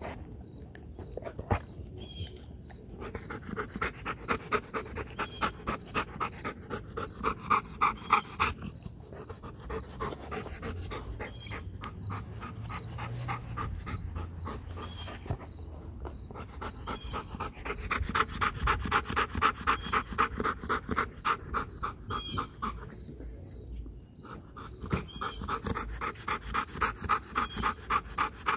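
Belgian Malinois panting hard and fast, about three breaths a second in long bouts broken by short pauses. The dog is winded from a workout just before eating.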